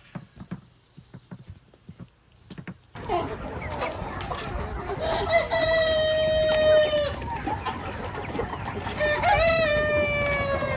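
Scattered light taps and clicks, then from about three seconds in the steady clucking noise of a flock of chickens, over which a rooster crows twice, each crow a long drawn-out call of about two seconds.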